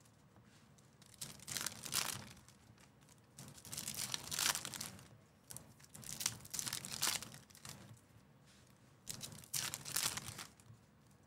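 The wrapper of a sealed baseball card pack being torn open and crinkled by hand, in four rustling bursts a second or two apart.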